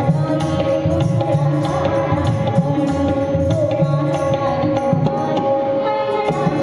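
Tabla playing a steady rhythm of strokes under held, sustained melodic tones in Indian music.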